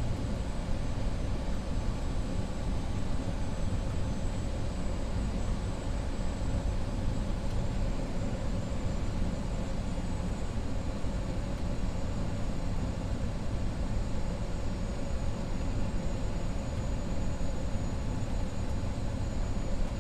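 Steady flight-deck noise of a BAe 146-300 on final approach, gear and flaps down: rushing airflow and the hum of its four Lycoming ALF502 turbofans, even and unbroken.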